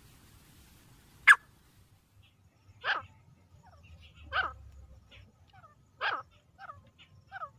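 Grey francolin calling: harsh notes about every one and a half seconds, with softer short notes between them. A single sharp click, the loudest sound, comes just over a second in.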